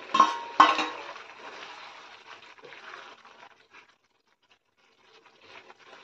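A steel bowl knocks twice against the rim of a kadai, with a brief metallic ring, as chopped mushrooms and peppers are tipped into thick gravy. Softer stirring noises follow as a wooden spatula works the vegetables in, fading out about four seconds in and returning faintly near the end.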